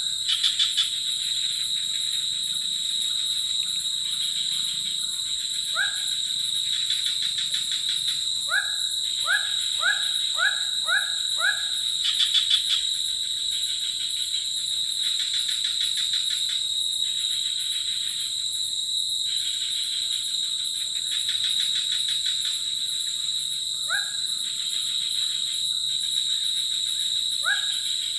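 Forest insect chorus: steady high-pitched ringing with pulsing trills that come in every few seconds. Over it, a bird gives short rising whistled notes, singly here and there and in a quick run of five about nine seconds in.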